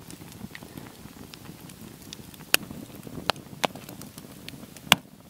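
Wood campfire crackling over a bed of coals, with a handful of sharp, separate pops over a low steady rush. The loudest pop comes near the end.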